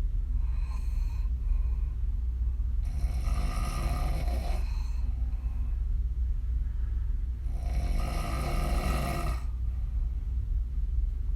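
A woman snoring on her back with her mouth open. There are two long snores, each nearly two seconds long and about four and a half seconds apart, after a fainter one near the start. A steady low hum runs underneath.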